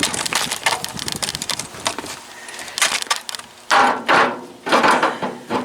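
Steel skid steer bucket tooth being worked onto the bucket's cutting edge: a run of light metal clinks and knocks, then several heavier metal strikes in the last couple of seconds.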